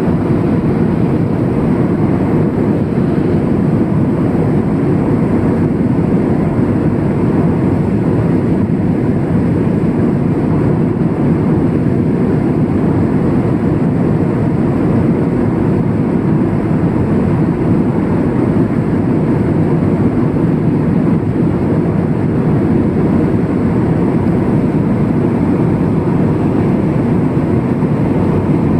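Aircraft cabin noise in flight: the steady, unbroken drone of engines and airflow heard from inside the cabin.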